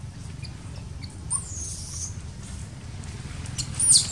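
High-pitched squeals of a baby macaque: a drawn-out squeal falling in pitch about a second and a half in, then a sharper, louder squeal dropping steeply near the end.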